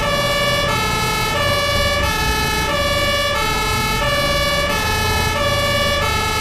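Two-tone hi-lo ambulance siren, switching back and forth between two pitches about every two-thirds of a second, over a low rumble.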